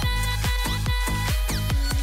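Electronic background music with a steady driving beat: a deep bass bed and falling bass-drum hits about two to three times a second.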